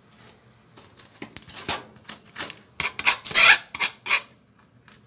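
Kitchen knife scraping the seeds out of halved red chillies on a cutting board: a run of short rasping scrapes, the loudest a little past the middle.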